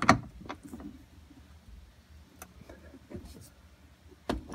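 Hand tools clinking against a bolt as a wrench, then a ratchet and socket, are fitted onto a Torx bit: a sharp metallic knock at the start, a few faint taps, and another sharp click about four seconds in.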